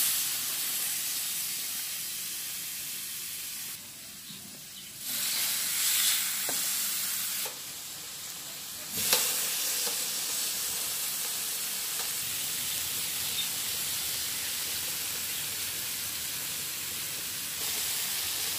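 Marinated chicken pieces sizzling on a hot ridged grill plate: a steady frying hiss that jumps abruptly in level several times, with a single sharp click about nine seconds in.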